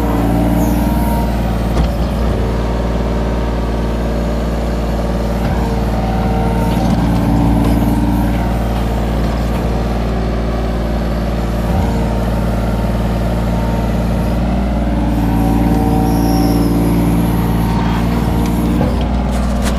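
Kobelco SK17SR mini excavator running while it digs, heard from the operator's seat: a steady diesel engine drone, with hydraulic whines that swell and fade as the boom and bucket move, and an occasional light knock.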